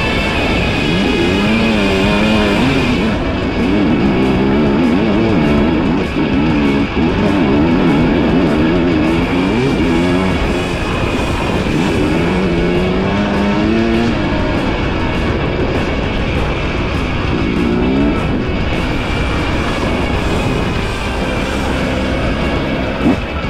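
Dirt bike engine being ridden, its pitch rising and falling over and over as the rider opens and closes the throttle, with guitar-led music playing over it.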